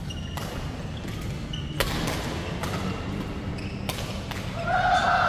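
Badminton rally: rackets strike a shuttlecock four times, sharp cracks one to two seconds apart, over a steady low hum. Near the end a voice calls out.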